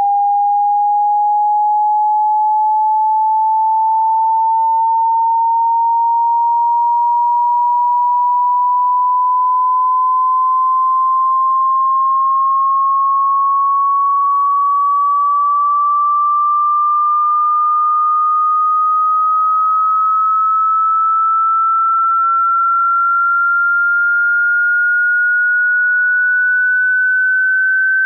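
A single pure sine-wave test tone gliding slowly and evenly upward in pitch, rising by about an octave at a steady, constant loudness: a hearing-test frequency sweep.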